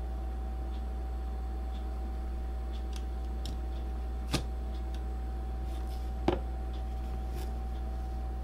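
Small screws and plastic action-camera parts being handled during reassembly: faint scattered ticks and two sharp clicks about two seconds apart, over a steady electrical hum.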